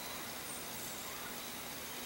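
Steady outdoor nature ambience: an even hiss, with one faint short high chirp about half a second in.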